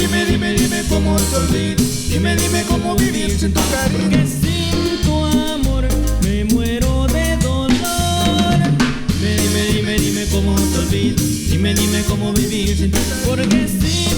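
A band playing an instrumental passage of Latin cumbia-style dance music: a drum kit keeps a steady beat under repeating bass notes, with a melody line on top.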